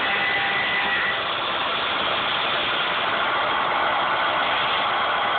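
Bridgeport mill spindle running with an end mill cutting 6061 aluminum at a fast 100 inch-per-minute feed: a steady, loud cutting noise, with a faint whine in the first second.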